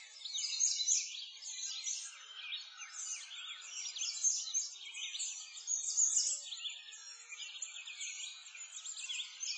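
Many songbirds chirping and singing at once, a dense chorus of quick high chirps that never pauses.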